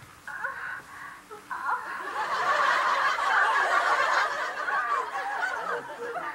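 Studio audience laughter, many voices together. It swells about a second and a half in, is loudest around the middle, then eases off a little.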